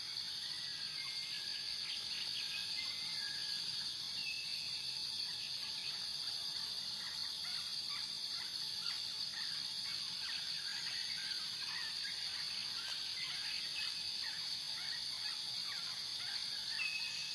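Outdoor nature ambience: a steady, high-pitched insect drone with scattered short bird chirps.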